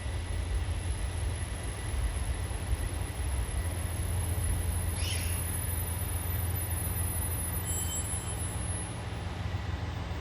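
KiHa 283 series diesel railcar's engines idling steadily while the train stands at the platform, a low even rumble. A short high chirp about five seconds in.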